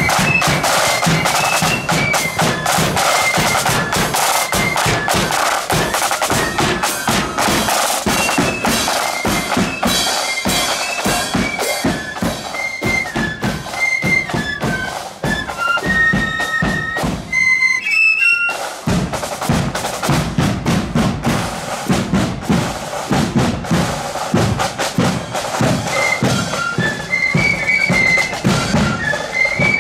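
Marching flute band playing a march, with high flutes carrying the melody over a steady beat of side drums. At about two-thirds of the way through, the playing drops away for about a second, then the full band comes back in.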